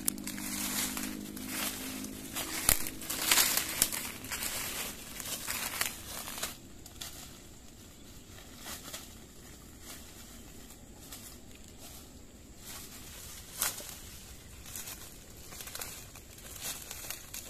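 Footsteps crunching through dry bamboo leaf litter while bamboo stems and leaves brush past, an irregular crackling. It is louder and dense for about the first six seconds, then fainter and sparser, with one sharper crack near the end.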